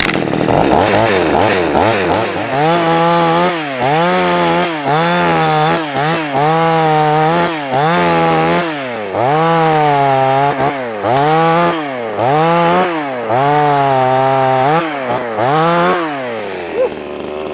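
25.4 cc two-stroke top-handle arborist chainsaw running as soon as it is pulled, with no choke, then revved up and let back down about a dozen times, roughly once a second. It settles to a steady idle near the end. The engine is very responsive.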